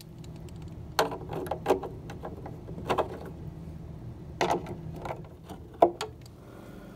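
Clicks, knocks and scrapes of hand tools and metal hardware as a loudspeaker is fastened into a wooden television cabinet, the sharpest knock near the end. A steady low hum runs underneath.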